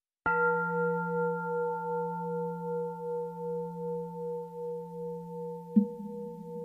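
A Buddhist singing bowl struck once, ringing on with several steady tones that slowly fade and pulse in a slow wobble. A second sharp strike near the end adds a rougher, lower hum.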